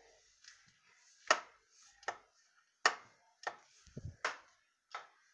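A light switch clicked again and again, about six sharp clicks under a second apart, with a dull bump about four seconds in. It is being flipped to test a ceiling-fan light that won't turn on.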